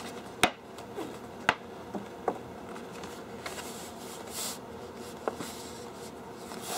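A sheet of posterboard being bent over by hand and pressed flat into a fold. The board gives a few sharp crackles and snaps as it flexes, with soft swishes of palms sliding over it.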